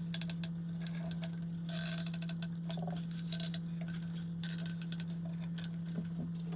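Light clinking and tapping of small hard objects over a steady low hum.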